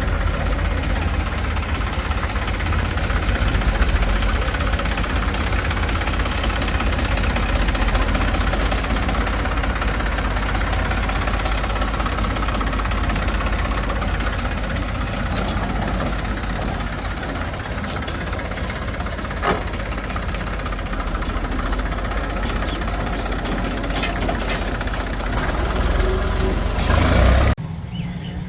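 Heavy diesel machinery engine running steadily, its sound mostly low in pitch. It swells a little near the end, then cuts off abruptly.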